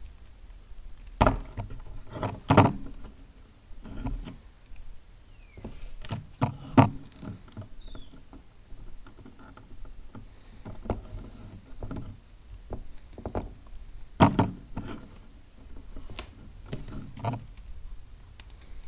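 Lego Technic plastic parts being handled as pneumatic tubing is pushed onto the cylinder fittings: irregular small plastic clicks and taps, the sharpest about a second in, at two and a half seconds, and again about fourteen seconds in.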